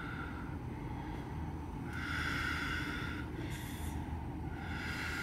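A labouring woman breathing slowly and deeply through a contraction: long, audible breaths through the mouth about every two and a half seconds, with a short, sharp intake of breath just before the last one.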